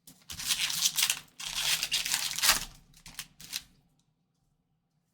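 A foil trading-card pack wrapper being torn open and crinkled: two long rips of about a second each, then a few short tears.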